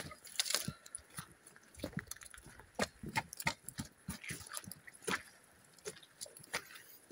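Irregular footsteps crunching and squelching on a wet, muddy, stony path, with odd knocks mixed in.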